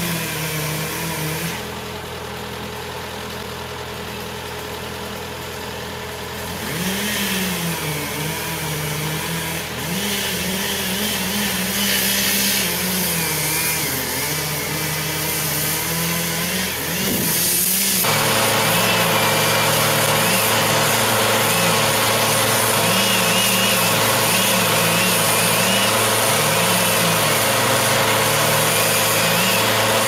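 Small engines running throughout: a steady engine drone under a chainsaw revving up and down as it cuts. The sound shifts abruptly about eighteen seconds in, after which the steady drone of the Bobcat S130 skid-steer loader is louder, with the chainsaw still rising and falling over it.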